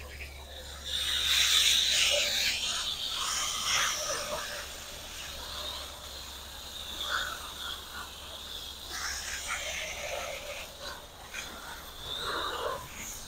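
Garden hose spray nozzle spraying water onto plants and soil: a hissing spatter that is loudest from about one to four seconds in, then lower and uneven as the spray moves along the bed.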